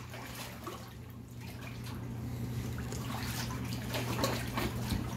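Water sloshing and lightly splashing in a hot tub as people move about in it, with scattered small drips and splashes over a steady low hum.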